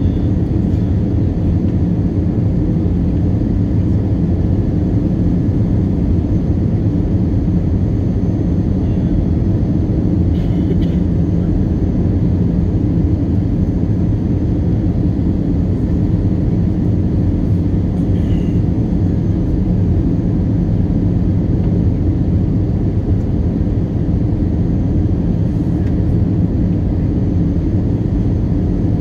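Steady low cabin rumble of an Airbus A321 on its landing approach: engine and airflow noise heard from a window seat over the wing.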